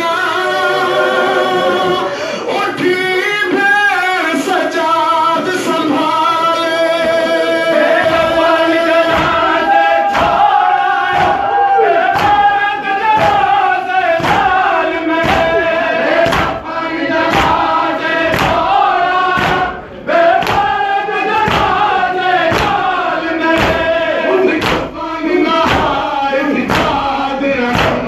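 Male voices chanting a Muharram noha, a lead reciter with the crowd singing along. From about ten seconds in, a steady beat of hand strikes, about one a second, keeps time with the chant: matam, mourners beating their chests.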